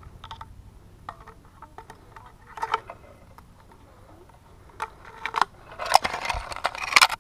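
Metal climbing hardware on a tree climber's harness (carabiners and rope devices) clinking and knocking as it is handled, in separate clicks at first, then a dense stretch of rattling and scraping against the bark near the end.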